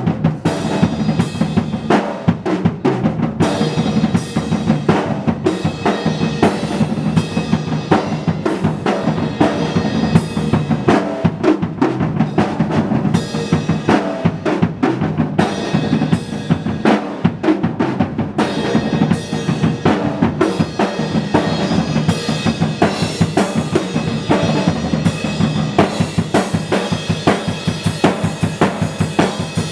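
Drum kit played continuously in a busy rhythm, with bass drum and snare strikes.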